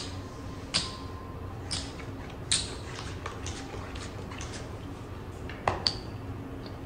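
A few sharp, separate clicks and clinks of casino chips and playing cards being handled on a blackjack table, one late click with a brief high ring, over a low steady background hum.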